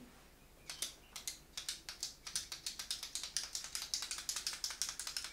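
Ballpoint pen clicked over and over, a few separate clicks at first, then quickly and steadily, several a second.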